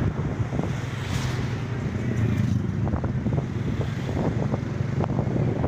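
A vehicle engine running steadily while moving, with wind noise on the microphone.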